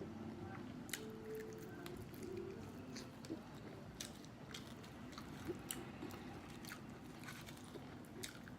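A person biting and chewing fried food close to the microphone, with soft crunches and scattered sharp clicks.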